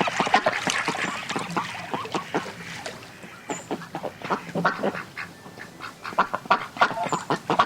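A flock of ducks quacking, many short calls overlapping in a continuous chatter.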